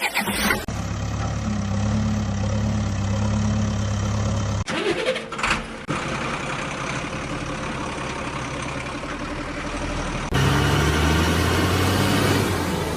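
Steady engine-like running hum with a low, even drone, in three stretches that change abruptly about five and ten seconds in.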